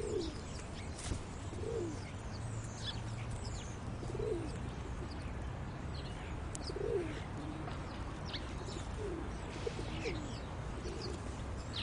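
Background bird ambience: low cooing calls repeat every second or two, with scattered high chirps above them and a faint steady hum underneath.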